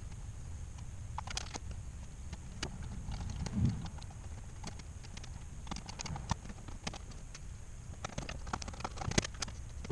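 Irregular light clicks and taps of tools and small parts being handled on a metal workbench while a winch's control box is worked on, over a steady low hum, with one duller thump about three and a half seconds in.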